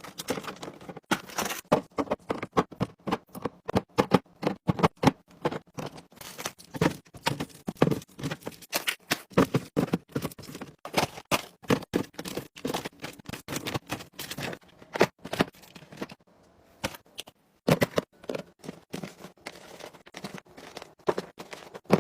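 Food packages and containers being handled and set down while a fridge is restocked: a quick, irregular run of clicks, taps and knocks, with a brief pause about sixteen seconds in.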